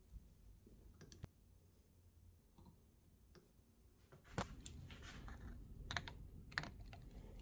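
Faint, sparse clicks of steel hand tools working a galvanized steel wire hose clamp: a couple of clicks about a second in, then more scattered clicks over low background noise from about four seconds in.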